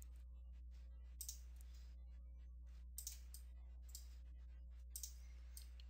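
Faint, scattered computer mouse clicks, a few seconds apart, over a low steady hum of room tone.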